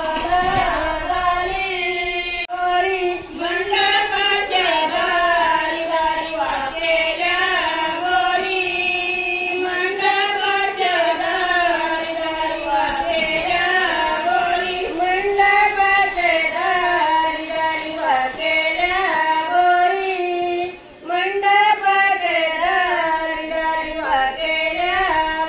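Women singing a traditional Konkan Marathi work song of the wedding grain-grinding ritual (chundalni), the melody running on with a short break about three-quarters of the way through.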